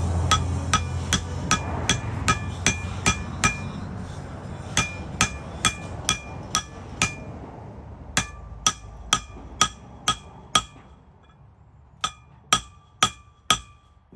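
Hammer blows on metal, struck at a steady pace of two to three a second in four runs with short pauses. Each blow gives a short ring.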